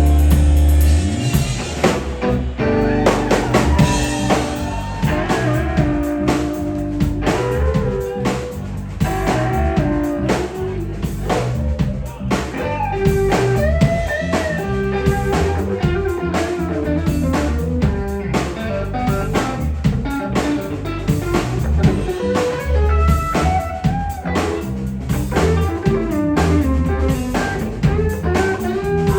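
Live rock band of drums, guitar and bass playing an instrumental passage: a guitar lead line with bending, gliding notes over a steady drum beat and bass.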